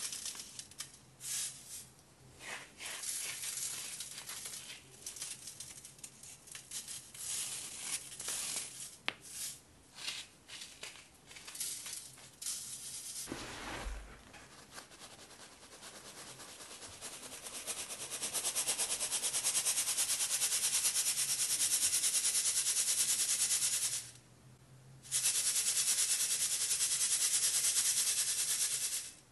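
Dyed baking soda chunks crunched and crumbled by hand in a fine wire-mesh sieve, first as irregular crackling crunches with one dull thump about halfway. Then the sieve is shaken steadily, a dense rattling hiss of crumbs and powder on the mesh, broken by a short pause near the end.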